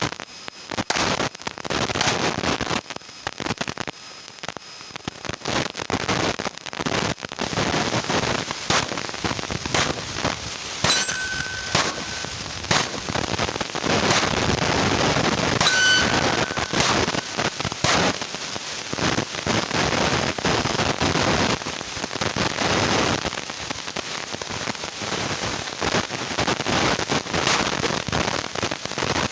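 Pistol gunfire: many shots fired one after another in quick strings.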